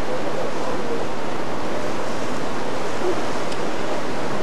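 Steady rushing noise of sea wash and wind heard from a moving ferry's deck, with a few faint short wavering tones in it.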